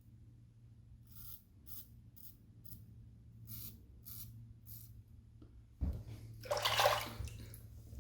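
Double-edge safety razor scraping stubble in a series of short strokes, roughly two a second. About six seconds in there is a knock, then a second-long rush of running tap water, as for rinsing the razor. A low steady hum sits underneath.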